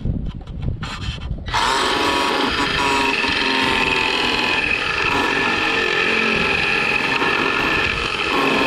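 Cordless drill running steadily as its twist bit bores up through the bottom panel of an electrical control box. A few light clicks come first, and the drilling starts about a second and a half in.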